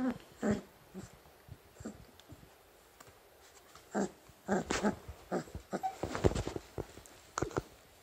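Three-week-old puppies giving short grunts, squeaks and small growls as they wrestle, in scattered bursts that come thickest from about four seconds in.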